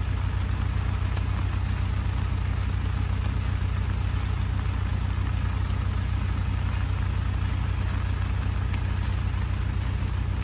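Toyota Hilux pickup's engine idling steadily with an even low hum.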